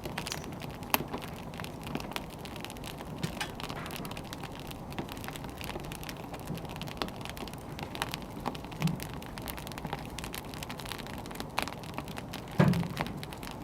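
Firewood burning with a steady hiss and scattered crackles and pops, one louder pop near the end.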